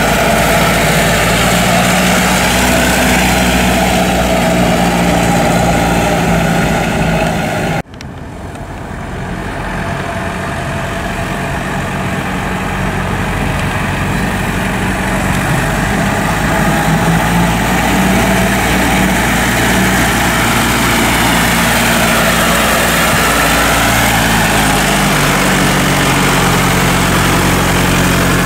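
1926 Ford Model T's four-cylinder flathead engine running steadily as the car drives. About eight seconds in, the sound cuts out for an instant, comes back quieter and builds up again over the next few seconds.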